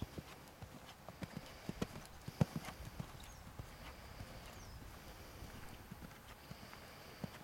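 Hoofbeats of a ridden black Hanoverian horse on sand arena footing: a run of dull, unevenly spaced thuds, loudest about two and a half seconds in.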